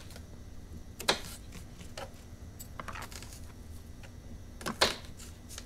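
A blunt kitchen knife chopping an onion on a plastic cutting board: a few irregular knocks of the blade against the board, the loudest near the end.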